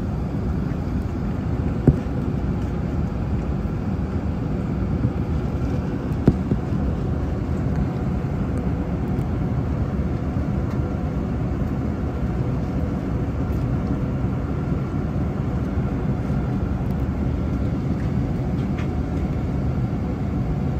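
Steady low rumble of an Airbus A380's passenger cabin in flight, engine and airflow noise, with two brief clicks about two and six seconds in.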